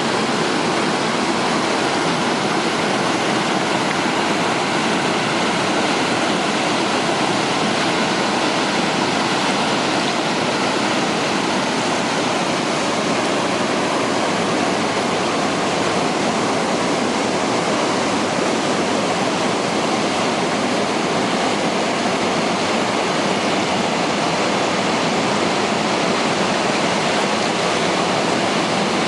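A waterfall's water falling and rushing steadily, a loud, even, unbroken noise.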